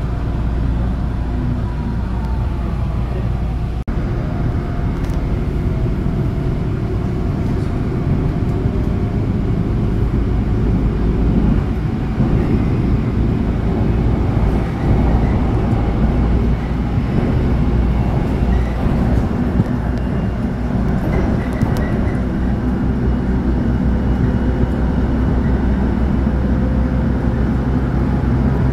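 Electric commuter train heard from inside the carriage: a steady low rumble of wheels on the track as it pulls out of a station and runs on. A faint motor whine is heard in the first few seconds.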